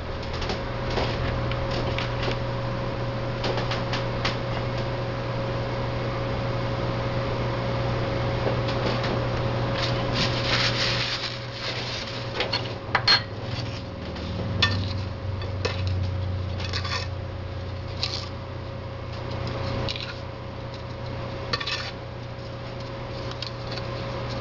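A spoon clinking and scraping on a ceramic plate as chicken breasts are pressed into and covered with a breadcrumb coating. Scattered short clicks and scrapes, the sharpest about thirteen seconds in, over a steady low hum.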